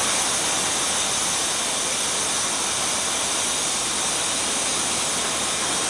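Steady rushing vehicle noise: an even, loud hiss with no distinct tones.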